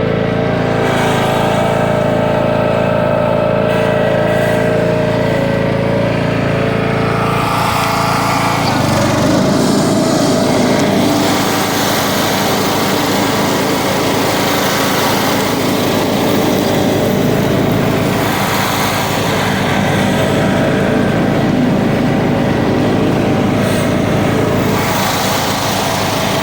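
Riding mower's Kohler Courage 21 hp engine running steadily under the rider. About eight seconds in, the sound turns rougher and noisier and stays that way.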